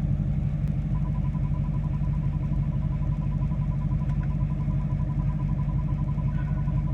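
LMM Duramax 6.6-litre V8 turbodiesel idling steadily. About a second in, a faint, rapidly pulsing high-pitched screech joins it with the transmission in reverse. The owner cannot identify the noise and only says something is messed up.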